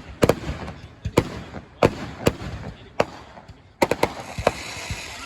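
Fireworks going off: sharp bangs at uneven intervals, about one every half second to second, with a quick cluster of bangs and a hissing crackle about four seconds in.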